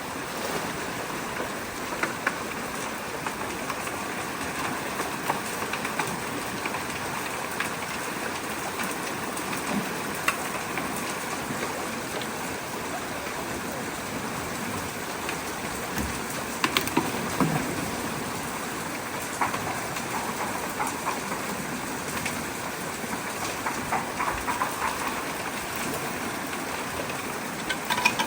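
Fast-flowing creek water rushing steadily through and around a debris-clogged culvert, with scattered brief knocks and clicks, bunched about two-thirds of the way in and again near the end.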